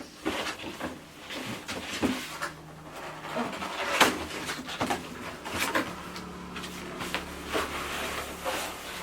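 A ring light's cardboard box and its packing being handled and opened by hand: irregular rustles, scrapes and knocks, the sharpest about four seconds in.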